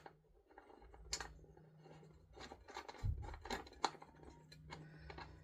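Scattered small clicks and scrapes of metal screws and a hand tool being handled as the seat-base screws are put in, over a steady low hum.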